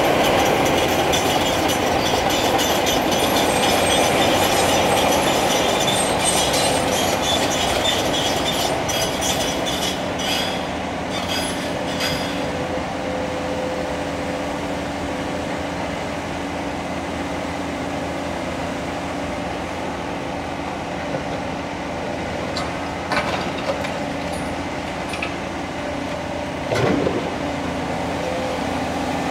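Cat 336 Next Generation excavator's six-cylinder diesel running under load with its hydraulics working, while its demolition attachment crunches and scrapes through a concrete wall. The crunching and scraping are dense for the first dozen seconds. After that the engine hum carries on, with a few knocks near the end.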